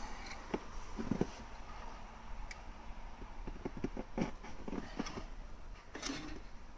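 Irregular light clicks and knocks of a metal hand tool working on an engine that is not running, as a screwdriver pressed on a piston checks it for play.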